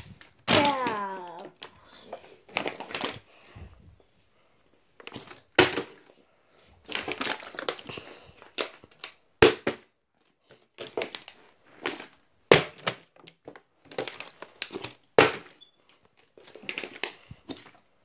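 Partly filled plastic water bottle being flipped over and over onto a wooden surface: a dozen or so sharp thuds and clatters with gaps between, and the plastic crinkling as it is handled.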